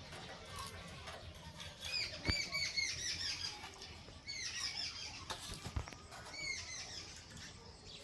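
Caged rose-ringed parakeets calling in three bursts of quick, repeated shrill chirps, with a couple of soft knocks in between.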